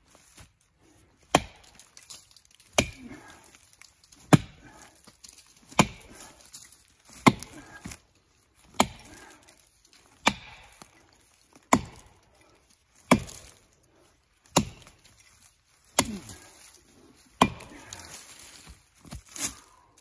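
Felling axe chopping into the trunk of a standing red oak: thirteen sharp, evenly spaced blows, about one every second and a half.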